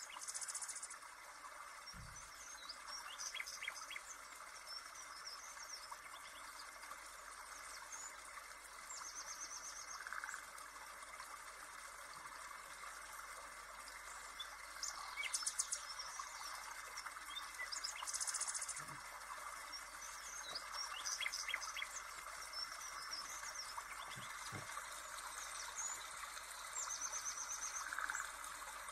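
Birdsong with a steady chirring of insects, a nature-sound background; the same bird phrases repeat about every nine seconds, as in a looped recording.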